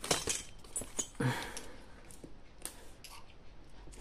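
Scattered light clicks, knocks and rustles of hands handling a small home-built power-supply case, the strongest about a second in.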